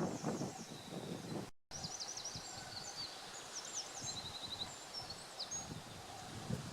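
Woodland birdsong: several small birds chirping and trilling high over a low, soft rustling background. The sound cuts out completely for a moment about a second and a half in.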